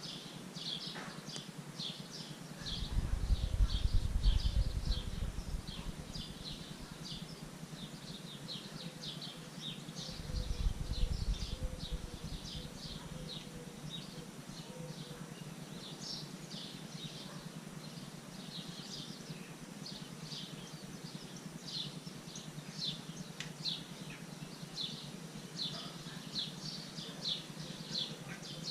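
Outdoor ambience of continuous high chirping, short calls repeating about twice a second, with wind buffeting the microphone in two gusts, about three seconds in and again about ten seconds in.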